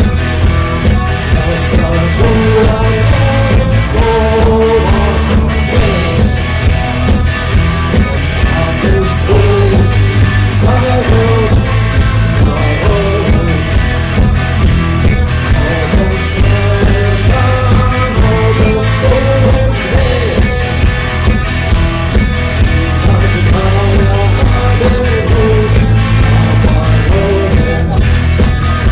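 Rock band playing live, with a steady drum beat driving the music.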